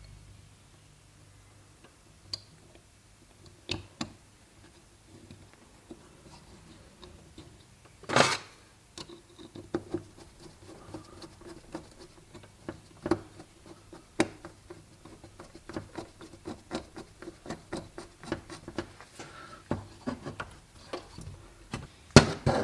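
Scattered clicks, taps and light rubbing of small carburettor parts and hand tools being handled on a workbench, with a single louder knock about eight seconds in.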